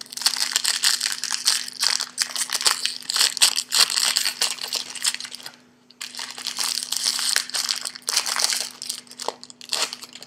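Trading card pack wrapper being torn open and crumpled, crinkling in two long spells with a short break about six seconds in.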